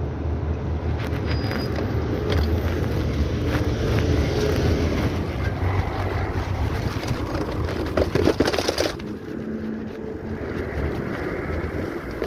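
Wind rushing over the microphone while riding, with a steady low rumble and a brief clattering rattle about eight seconds in.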